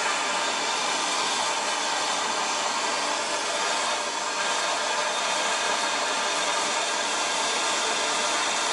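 Compressed air blowing steadily from an air-hose nozzle: an even, unbroken hiss with no change in pitch.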